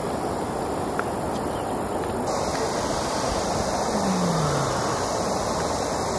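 Steady rush of flowing river water, with a faint click about a second in.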